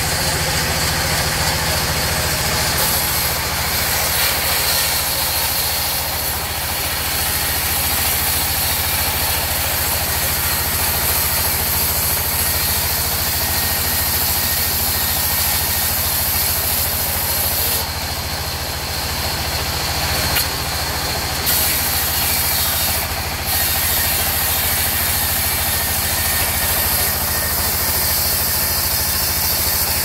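Sawmill band saw ripping a wooden plank lengthwise. The saw's drive runs with a steady low drone under the high hiss of the blade in the wood, which swells for short stretches a few times.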